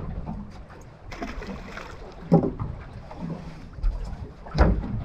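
Small waves lapping and slapping against the hull of a small aluminium boat, with two sharper knocks, about two and a half and four and a half seconds in.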